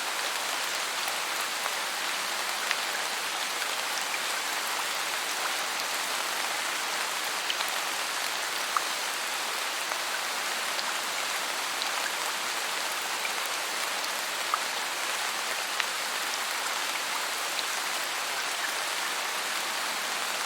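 Steady rain falling on forest foliage: an even hiss with scattered individual drop ticks, a few of them louder single drips.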